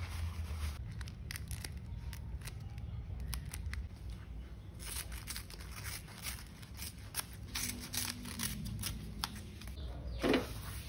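Scissors snipping through banana leaves, a run of short crisp cuts and clicks, with the crinkle of the stiff leaves being handled. There is a louder rub near the end as a leaf parcel is set down.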